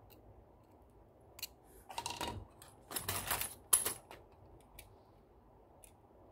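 Light metallic clicking and rattling of pliers and stripped wire ends being worked into a wall switch's terminals, in short clattering bursts about two and three seconds in and a sharp click near four seconds.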